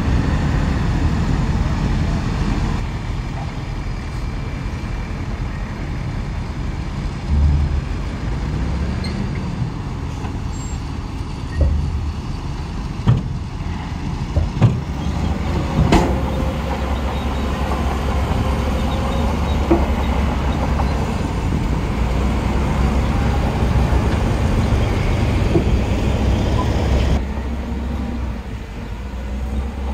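Heavy diesel earthmoving machinery, a bulldozer and dump truck, running steadily with a low engine drone. A few sharp knocks and clanks come near the middle.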